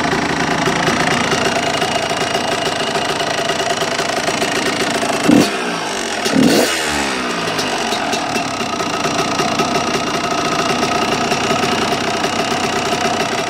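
Engine with a new piston and water pump, after only a couple of warm-ups, running steadily with a rattling, knocking noise that the owner finds strange; it is blipped twice about five and six and a half seconds in. The owner has found no up-and-down play in the crank and does not know what the noise is.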